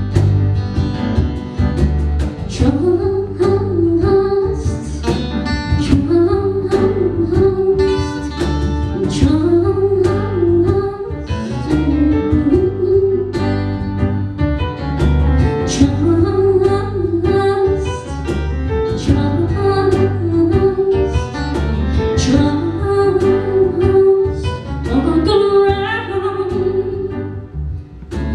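Live band music: acoustic guitar, bass, piano and cajon playing a pop song, with a melody line over a steady beat. The music drops briefly near the end.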